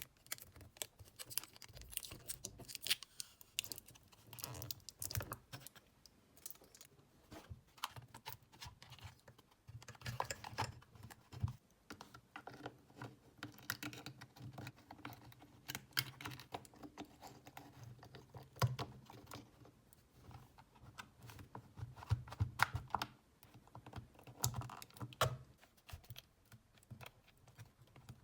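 Irregular light clicks, taps and small rattles of the Hitachi 24V cordless drill's plastic parts being handled and fitted together by hand, scattered throughout.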